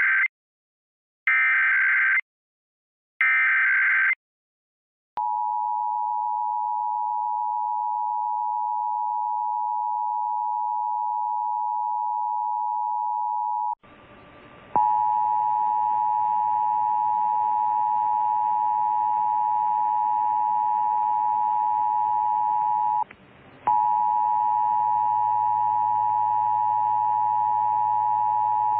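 Emergency Alert System test signal: the last of the SAME header's short data-tone bursts, each about a second long. About five seconds in, the steady two-tone EAS attention signal starts. After a short dropout near 14 s the attention tone carries on over background hiss and hum, with a brief break near 23 s.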